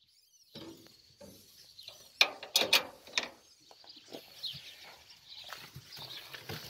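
Clicking and rattling from a wooden, wire-fronted rabbit hutch's fittings being handled: four loud, sharp clicks in about a second, a little over two seconds in, among fainter scattered clicks.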